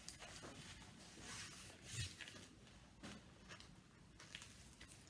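Faint rustling of a diamond painting canvas sheet being handled on a table, with a few soft taps, the clearest about two and three seconds in.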